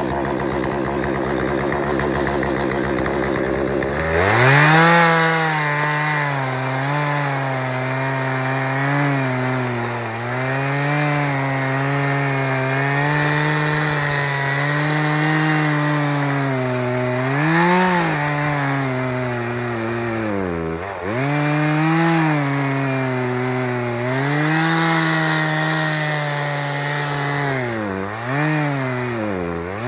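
Chainsaw idling, then throttled up about four seconds in and cutting into oak. The engine note drops under load and picks up again several times, dipping deepest around the middle and near the end.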